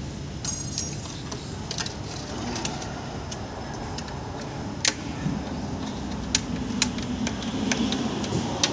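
Irregular sharp metallic clicks and scrapes as a thin steel strip from a wiper blade is poked against the radiator's metal header and tank, coming more often in the second half, over a steady low rumble.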